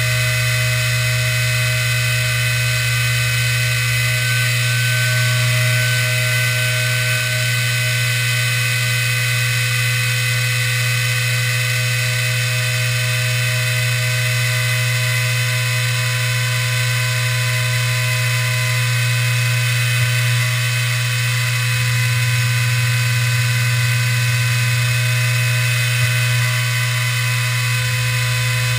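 Small hobby CNC router milling a quadcopter arm out of a sheet: the spindle runs steadily with a whine of several fixed high tones over a strong low hum while the bit cuts.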